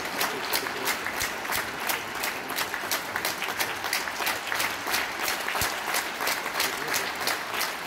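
Concert-hall audience applauding steadily, with one clapper close by standing out at about four claps a second.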